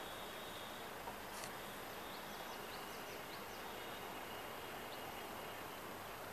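Outdoor ambience: an even background hiss with a faint steady high tone, and a quick run of short, high, rising chirps about two and a half seconds in.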